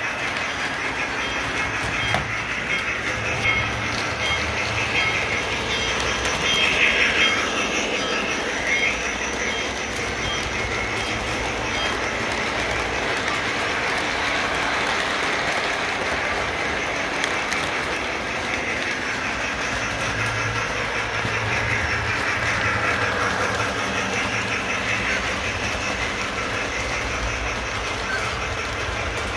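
Model freight train running on its layout track: a steady rolling rumble with the clacking of wheels over the rail joints. It swells twice, about a quarter of the way in and again past the middle, as cars pass close by.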